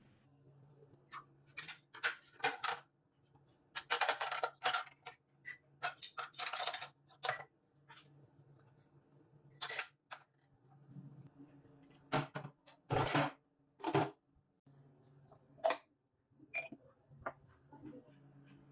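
Dirty dishes being cleared from a stone countertop: ceramic plates, metal spoons and drinking glasses clatter and clink as they are picked up and stacked, in irregular bursts with short pauses between.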